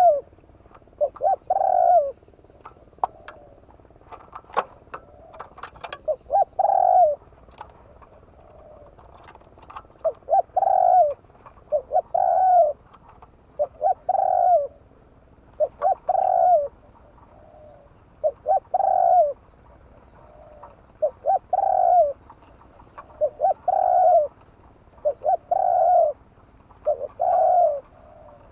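Spotted dove cooing over and over, a phrase of a few short coos ending in a longer coo, repeated about every two seconds. A few sharp clicks come in the first quarter.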